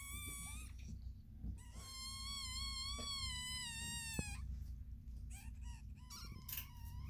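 Newborn American Bully puppies crying in high, wavering squeals. One cry ends just after the start, a long cry of two to three seconds follows, and another begins near the end.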